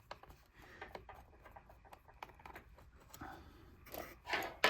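Small clicks, taps and scrapes of hand tools and loose screws being handled on an opened MacBook, with a louder scrape near the end.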